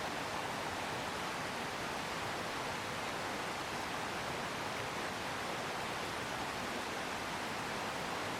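Steady, unbroken rushing of a stream running over rocks.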